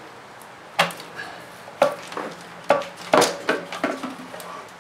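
A handful of sharp plastic knocks and clatters, the loudest about three seconds in, as the plastic intake air resonator and its PCV hose are worked loose and lifted off the throttle body.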